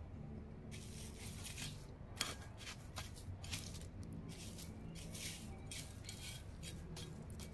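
Dry garden mulch and soil rustling and crackling as they are pushed by hand over freshly set seedlings, in irregular crisp bursts with a few sharper clicks.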